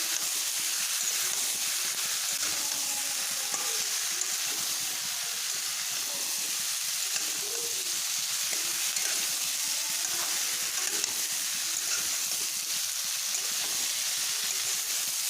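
Sliced bottle gourd, potatoes and green chillies frying in mustard oil in a kadai: a steady sizzle, with the scrape of a spoon stirring the vegetables.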